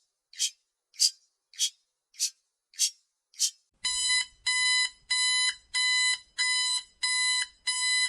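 A clock ticks steadily, a little under twice a second. About four seconds in, the ticking gives way to an electronic alarm: a steady string of half-second beeps, the timer's signal that the countdown has reached zero.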